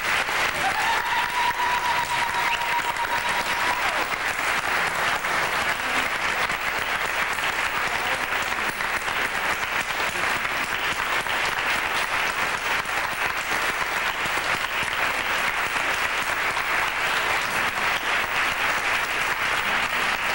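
Large audience applauding steadily. A thin, steady high tone is held for about three seconds near the start.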